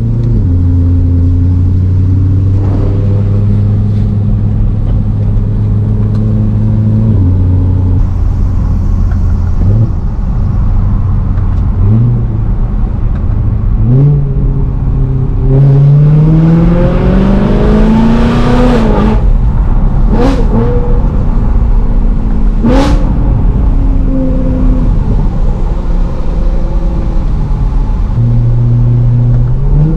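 BMW M3 E92's V8 engine under way on a wet road: cruising at a steady pitch with a few small steps, then revving up in a long rising sweep about halfway through that drops off sharply, followed by two short sharp rev blips before it settles back to a steady cruise.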